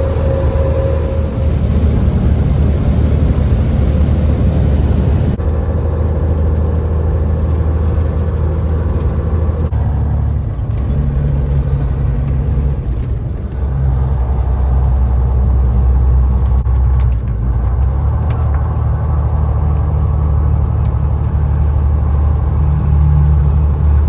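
Cabover semi truck's diesel engine running under load, pulling a loaded cattle trailer, heard from inside the cab as a steady low drone. Its note steps to a new pitch about ten seconds in and dips briefly a few seconds later.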